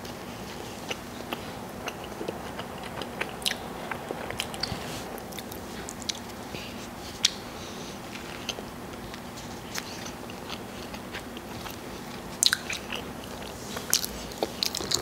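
Close-up eating sounds of a person biting and chewing a Wendy's chicken sandwich: soft, irregular crackles and mouth clicks, with a cluster of louder smacks near the end.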